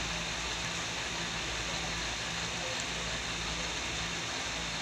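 Steady hissing noise of a pot of santol in coconut milk boiling on the stove.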